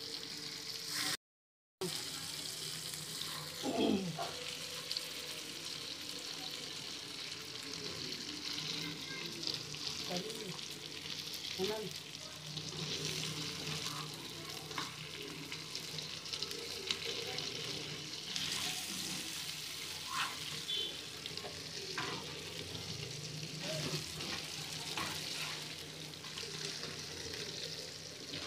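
Fish steaks in masala sizzling steadily in oil in a heavy black iron frying pan, with a steel spatula now and then scraping the pan and turning them. All sound drops out briefly about a second and a half in.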